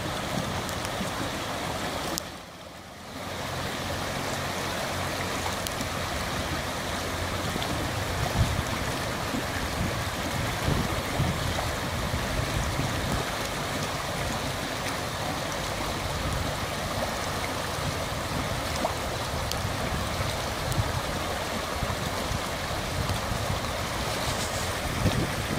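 Muddy floodwater rushing steadily along a river bed swollen by heavy rain. The sound drops away briefly about two seconds in.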